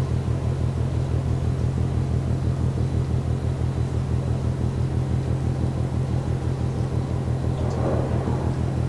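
Low, rapid, even pounding drone from the container ship MAERSK TAIKUNG, heard from over a kilometre away. A brief extra rush of noise comes in near the end.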